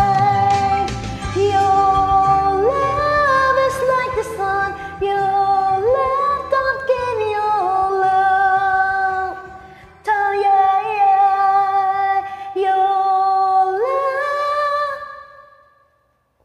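Karaoke backing music of a slow pop ballad, with a woman singing along in long, wordless held notes that slide up into each phrase. The music fades out near the end.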